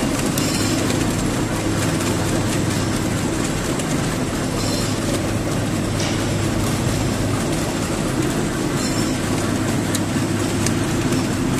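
Flexible drinking-straw making machine running steadily in production: a constant mechanical hum and rattle, with a faint high ticking that recurs about every four seconds.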